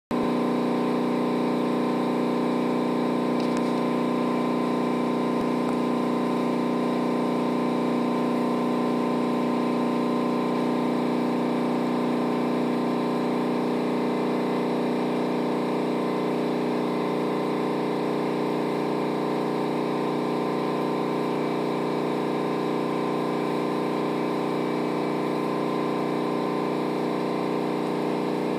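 A motor running with a steady, unchanging hum made of several fixed tones.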